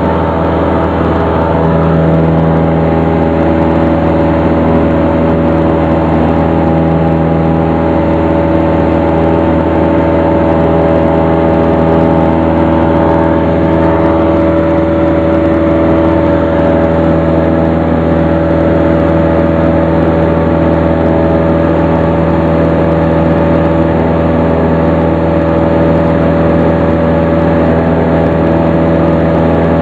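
Single-engine light aircraft's piston engine and propeller droning steadily, heard loud from inside the cockpit, with no change in pitch.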